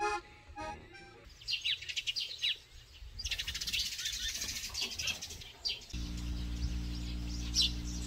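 Small birds chirping and twittering outdoors, after the last notes of a short piece of music fade out at the start. About six seconds in, a steady low hum begins under the birdsong.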